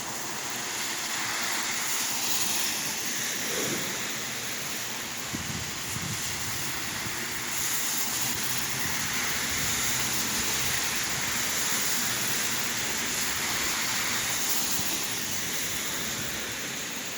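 Steady rain falling and splashing: a dense, even hiss that swells and eases a little.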